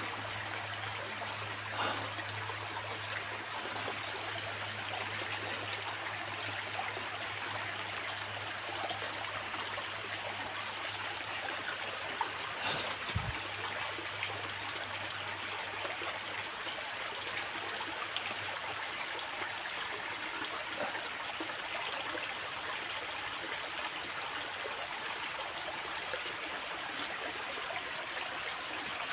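Shallow, rocky forest creek running: a steady rush and trickle of water over stones.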